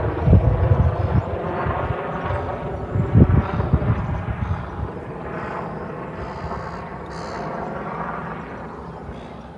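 Helicopter flying overhead, its rotor noise loudest at the start and fading steadily as it moves away.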